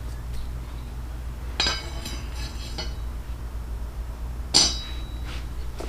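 Two metallic clinks that ring briefly, about a second and a half in and again, louder, about four and a half seconds in, as metal parts or tools are handled, over a steady low hum.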